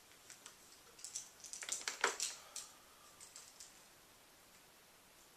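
A quick run of light clicks and taps, like small objects or buttons being handled at a table, bunched from about a second in to under three seconds, with a faint brief tone after the loudest tap.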